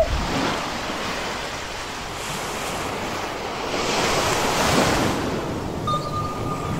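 Ocean surf: a steady wash of waves that swells to a peak about four to five seconds in, then eases off. A thin, steady high tone comes in near the end.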